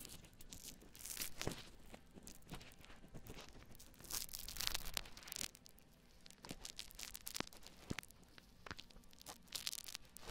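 Foam lather squished and rubbed by hand over a binaural microphone's ears, close to the mic, with a dense irregular crackle of bubbles popping. It swells louder about a second in, around the middle and near the end.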